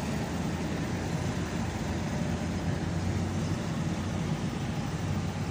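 Articulated tracked all-terrain vehicle driving past at low speed, its engine running with a steady low drone.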